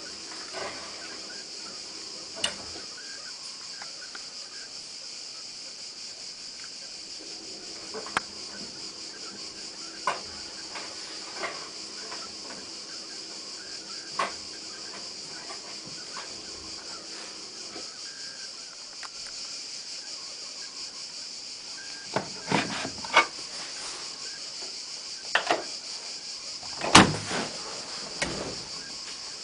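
Hotpoint-Ariston AVXXF137 washing machine running: a steady hiss with scattered sharp clicks and knocks every few seconds, coming closer together near the end.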